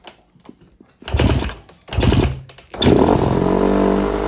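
2008 Honda CRF150R's single-cylinder four-stroke engine being started. Two short bursts of firing come first, then about three seconds in it catches and keeps running steadily. This is the first time it runs after a sheared woodruff key threw off the ignition timing; the idle still needs adjusting.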